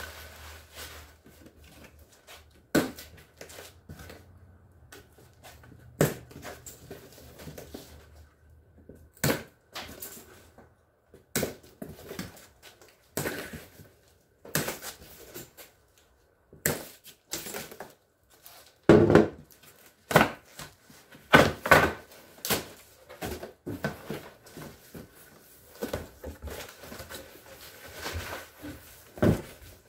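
A large cardboard shipping box being unpacked by hand: irregular sharp snaps, crackles and rustles as its plastic strapping is worked off, the cardboard flaps are bent and torn open, and bubble wrap crinkles. The snaps come thickest and loudest about two-thirds of the way through.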